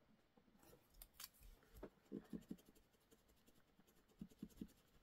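Faint scratching of a pen writing on a planner page, in short scattered strokes.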